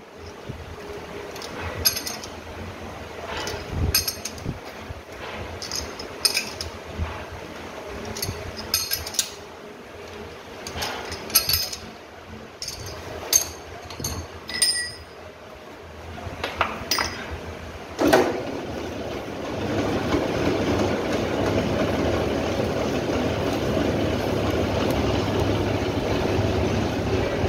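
Metal clinks and knocks of a chuck key working the jaws of a large four-jaw lathe chuck as a disc workpiece is clamped. About 18 seconds in there is a loud clunk, then the lathe starts and runs steadily with a constant hum as the chuck spins.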